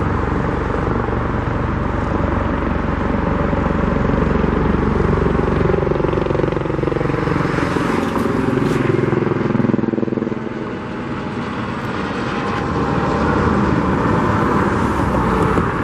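Road traffic: vehicles passing, with an engine's pitch sliding up and down in the middle. The sound eases briefly about ten seconds in, then builds again.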